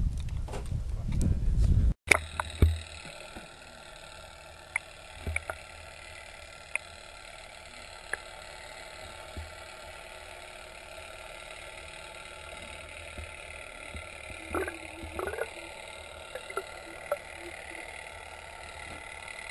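Underwater sound picked up by a submerged camera: a steady hiss with faint steady tones and scattered small clicks. It follows a brief low rumble with rustling before a cut about two seconds in.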